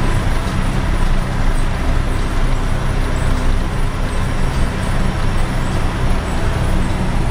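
Peterbilt semi truck's diesel engine pulling steadily under load up a steep grade, heard from inside the cab, with steady road noise.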